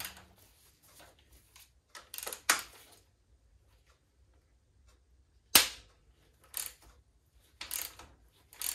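Ratchet and socket working on steel frame-rail bolts: short bursts of ratchet clicking about a second apart, and one loud sharp crack about five and a half seconds in, typical of a tight bolt breaking loose.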